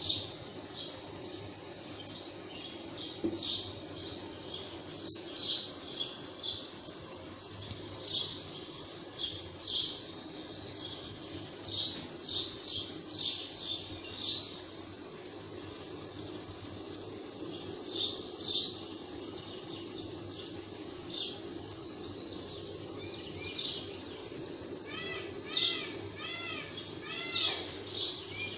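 Birds chirping: short high calls come in clusters all the way through. Near the end there is a quick run of arching whistled notes, over a steady low background hum.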